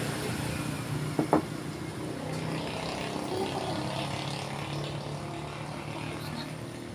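Motor vehicle engine hum from street traffic, steady and low, easing slightly near the end, with two short clicks about a second in.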